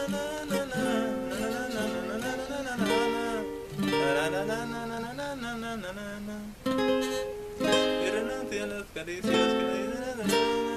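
Requinto guitar picking the melody of a song intro: a continuous run of single notes and paired notes.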